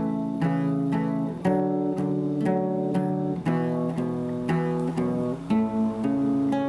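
Instrumental background music: plucked chords, a new one about every half second.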